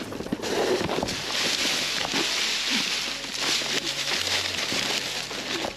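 Steady rushing wind and trail noise while riding an electric unicycle fast down a dirt trail, a hiss that drops away shortly before the end.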